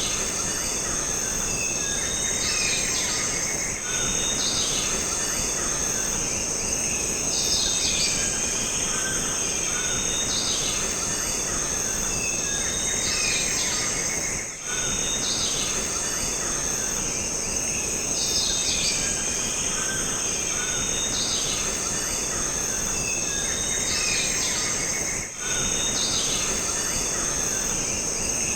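Jungle ambience: a dense, steady high-pitched drone of insects, with short bird and insect calls repeating every couple of seconds over it. The level dips briefly three times.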